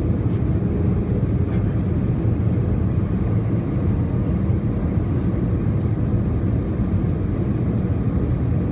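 Steady low rumble of an Airbus A320's jet engines and airflow, heard inside the cabin beside the wing during final approach.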